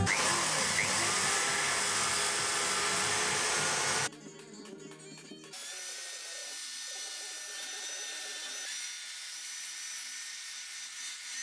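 Handheld narrow-belt power file running as it sands the ends of thin wooden strips. It stops about four seconds in and starts again, quieter, a second and a half later.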